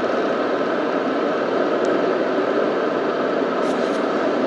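Steady road and engine noise of a Wuling Alvez on the move, heard from inside its closed cabin, with a faint tick about two seconds in.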